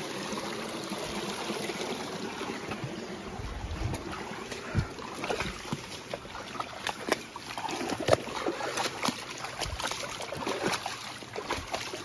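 Shallow rocky stream trickling and running over stones, with scattered footsteps and knocks on rock that start about four seconds in.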